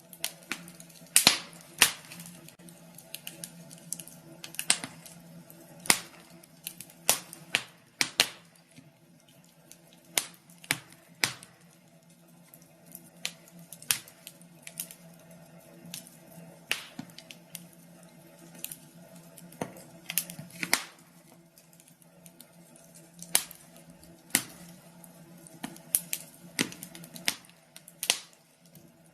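Wood fire crackling in a fireplace: irregular sharp snaps and pops, uneven in loudness and coming a few a second, over a faint steady low hum.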